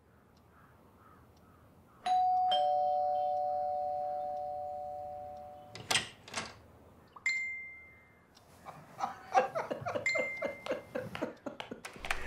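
Two-tone ding-dong doorbell chime: a higher note and then a lower one, both ringing on and slowly fading over about four seconds.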